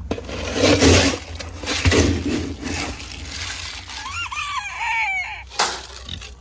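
Chickens clucking and squawking, with a run of short calls about four seconds in. Several bursts of rustling noise come between the calls, the sharpest near the end.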